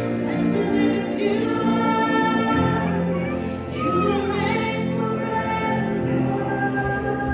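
Live worship band playing a slow song, with female voices singing long held and sliding notes over sustained keyboard and guitar chords and bass.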